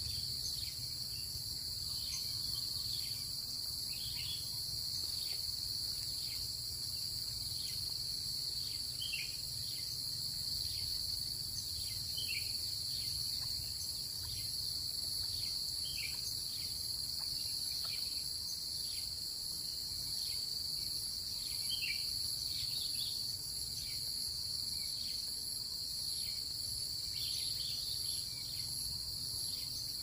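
Steady, high-pitched insect chorus, with a faint, regular pulsing under it.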